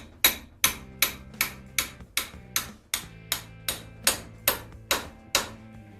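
Hammer tapping steadily, about two or three blows a second, driving a metal part back onto an angle grinder's shaft.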